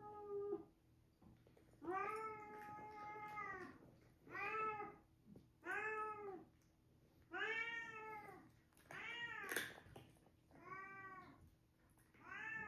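A domestic cat meowing again and again, about seven meows, each rising and then falling in pitch; one about two seconds in is held for well over a second, the rest are short.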